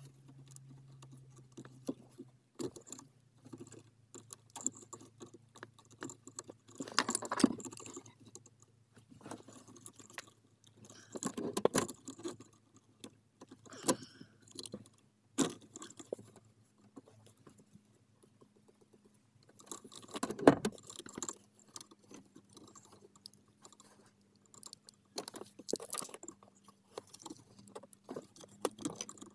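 Hand tools and metal car parts clinking, clicking and knocking during hands-on work on the battery and seat mounts, in irregular bursts with a few louder clattering spells.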